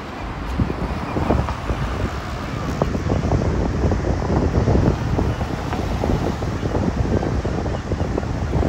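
Outdoor street ambience: wind buffeting the microphone in irregular gusts over a steady low rumble of road traffic.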